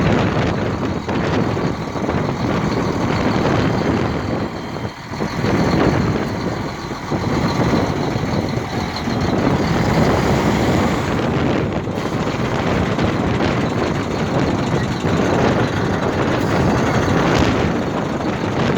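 Wind buffeting the microphone hard, its rush rising and falling in gusts, over the running of a truck.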